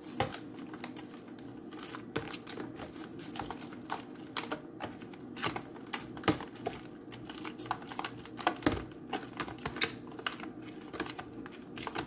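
Spoon stirring a marinade in a small bowl, with quick, uneven taps and clinks against the sides over a low steady hum.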